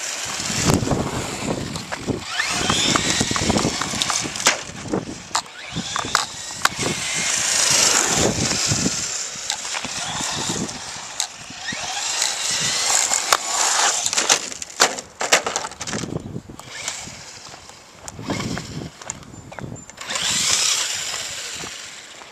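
Traxxas Slash 4x4 RC truck's brushless electric motor whining in repeated bursts of acceleration, running on its stock 7-cell NiMH pack, with tyres hissing over the asphalt and many sharp clicks and knocks.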